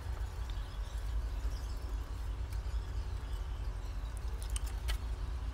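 Fabric scissors cutting through stretchy knit fabric on a table, with a couple of sharper snips near the end, over a steady low rumble.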